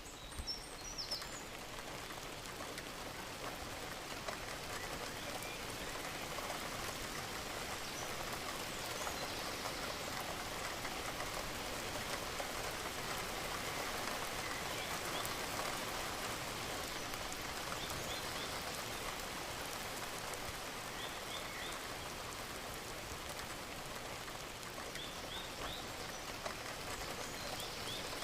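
Steady rain falling, an even hiss of drops, with a few short high chirps from birds now and then.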